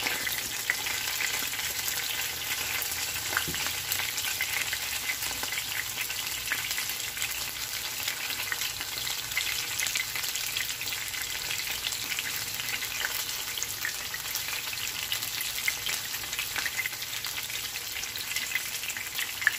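Breaded pork schnitzels shallow-frying in hot oil in a nonstick pan: a steady sizzle with scattered crackles and pops.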